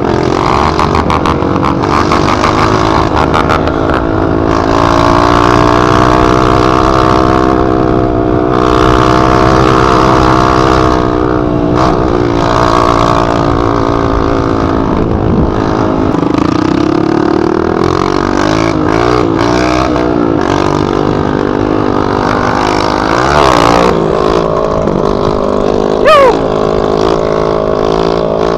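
Dirt bike running with no muffler, only the bare exhaust pipe, its engine revving up and down as it is ridden, with wind buffeting the helmet camera. A brief high squeal sounds near the end.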